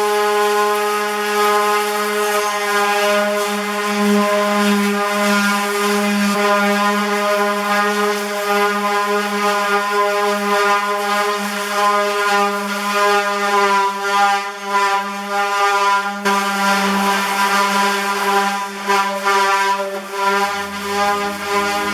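An electric power tool's motor running with a steady whine. In the second half, rougher, uneven contact noise is heard as the tool works the metal.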